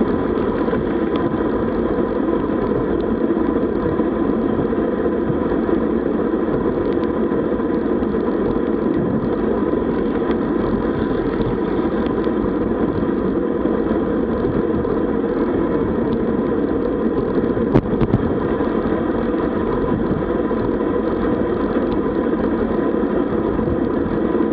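Steady rush of wind and tyre noise from riding a road bicycle, with one sharp click late on.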